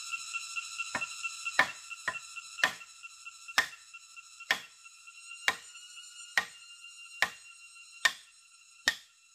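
Rhythmic strikes of a tool on wood, about eleven blows at roughly one a second, the same cadence as chopping or driving stakes while building a shelter. A steady high-pitched ringing tone with overtones runs underneath and pulses quickly at first.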